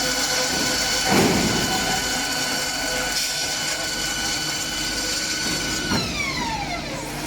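Metal-cutting circular saw with a high-speed steel blade running with a steady whine, a knock about a second in. From about six seconds in the whine falls steadily in pitch as the saw slows down.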